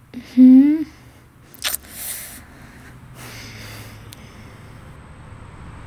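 A woman's brief wordless vocal sound, rising a little in pitch, followed by a sharp click and a couple of short breathy hisses.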